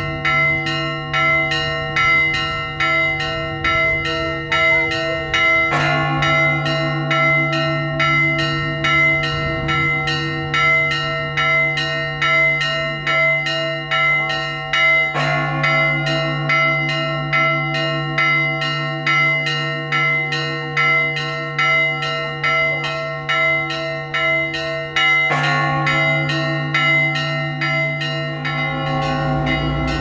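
Orthodox church bells rung by hand from ropes: the small bells are struck in a rapid, steady pattern of several strokes a second, and the big low bell sounds under them three times, about every nine or ten seconds.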